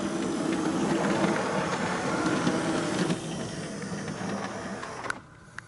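A 00 gauge model train running along the track on an analogue shuttle layout: a steady whirring rumble of the small electric motor and wheels, which eases back about three seconds in and dies away about five seconds in.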